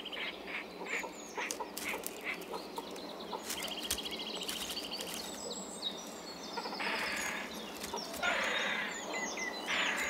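Grey heron nesting colony: harsh calls from the herons, mostly in the second half, over small songbirds chirping and trilling.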